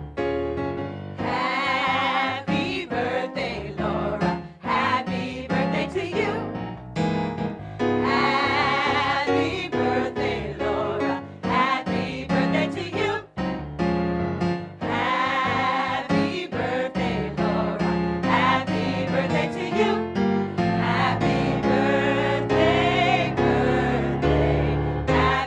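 Gospel choir of men and women singing a birthday greeting together over a low keyboard accompaniment, with short breaks between phrases.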